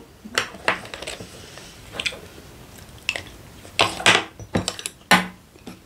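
Scattered clinks and knocks of tableware: a ceramic rice bowl and utensils being handled against the table and dishes, about eight separate short taps with a small cluster about four seconds in.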